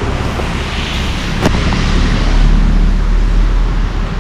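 Steady motor-vehicle and road noise with a low rumble, swelling slightly in the middle. There is one sharp click about a second and a half in.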